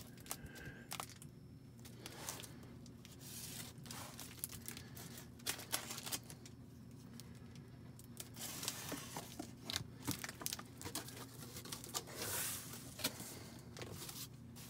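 Cardboard box being opened by hand: packing tape torn and cardboard flaps scraped and folded back, in scattered faint clicks and rustles.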